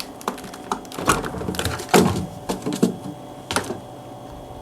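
Irregular clicks and knocks of a fridge being opened and its contents handled, the strongest about one, two and three and a half seconds in, over a steady low hum.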